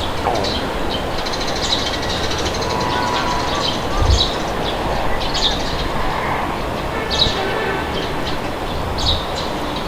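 Steady wind noise with birds chirping, short calls repeating every second or so over the wind. A brief low thump comes about four seconds in.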